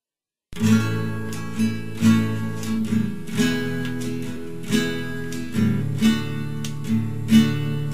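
Acoustic guitar playing an instrumental intro, chords strummed and plucked with a new stroke about every half second to a second. It starts about half a second in, after silence.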